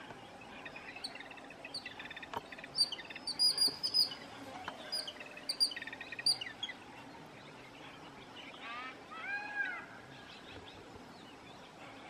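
Jungle babblers calling: a run of short, sharp squeaky chirps in the first half, then a few short arched calls a little later.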